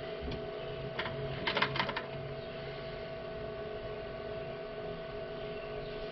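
Sharp metal clicks from a wrench on the lathe's quick-change tool post nut: one about a second in, then a quick cluster of several half a second later, over a steady electrical hum.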